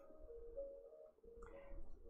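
Faint background music: soft, held notes that shift between a few pitches.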